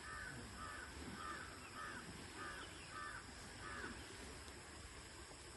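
A faint run of short, harsh animal calls, about two a second, which stops about four seconds in.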